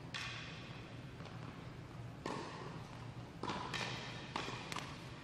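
Tennis balls being bounced and struck with rackets on an indoor court: about six sharp pops, one at the start and a quick run from a little past two seconds in, each with a short echo from the hall, over a steady low hum.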